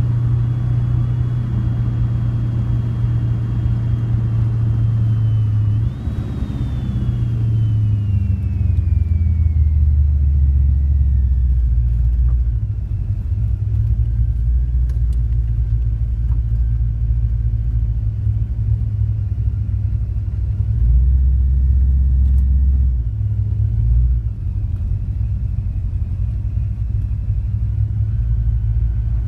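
Corvette Stingray's 468 cubic-inch big-block V8 running steadily as the car is driven. About six seconds in, the engine note drops to a lower pitch, then rises and falls a few times with the throttle.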